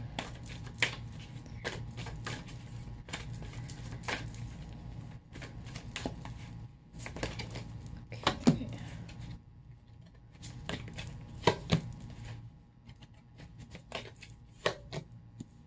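Tarot cards being shuffled and handled by hand: an irregular run of light clicks and snaps, some louder than others, with brief quieter gaps.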